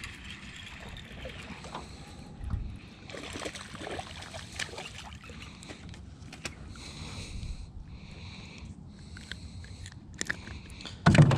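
A small largemouth bass being landed into a boat: a baitcasting reel is cranked, the fish splashes as it is lifted from the water, and it is handled with scattered clicks and knocks. There is a loud bump just before the end.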